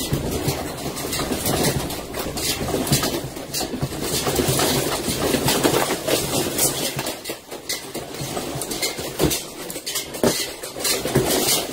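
A room shaken by a strong earthquake: a steady rumble of the building with shelves, boxes and loose objects rattling and knocking throughout, easing briefly about seven seconds in.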